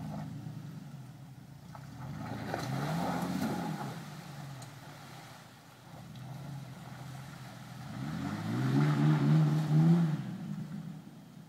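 Ford Ranger pickup's engine revving under load in deep mud. It revs up once about two seconds in, then again longer and louder from about eight seconds in.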